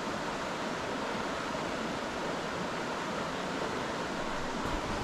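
Steady rushing of river water, an even, unbroken hiss, with a few low bumps near the end.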